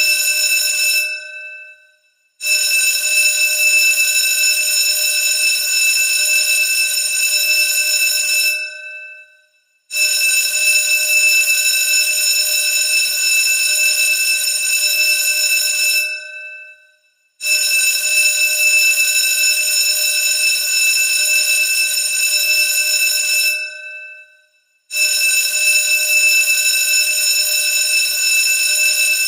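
School bell ringing loudly in long bursts of about six seconds, each dying away and followed by a pause of about a second before the next. The pattern repeats like an alarm, with a continuous ringing tone throughout each burst.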